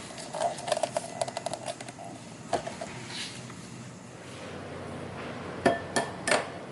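Kitchen handling sounds: a quick rattle of small clicks in the first couple of seconds, a lone click, then three sharp clinks of hard objects with a short ringing tone near the end.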